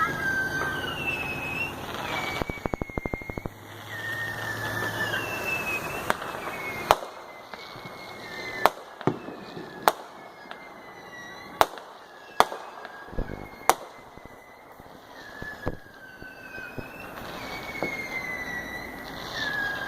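Consumer fireworks going off: a quick rapid crackle about two to three seconds in, then about seven sharp bangs a second or two apart, with repeated wavering whistles throughout.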